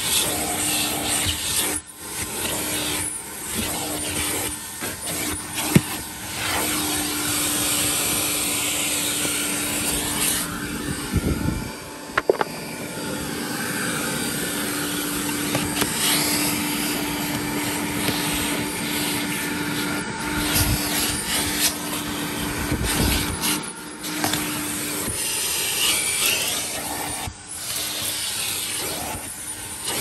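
1969 Electrolux Model 1205 canister vacuum running with a steady hum and suction hiss. Its plastic crevice tool rubs and scrapes over the car's carpet, with a few sharp knocks against the trim.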